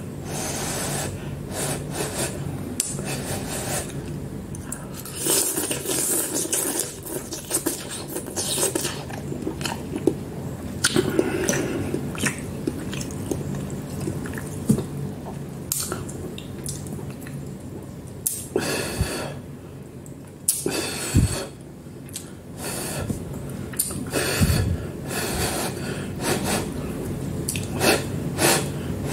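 A person eating hot instant noodles: slurping and chewing in irregular bursts, with a metal fork and spoon scraping and clinking against the bowl, and some breathing through the nose.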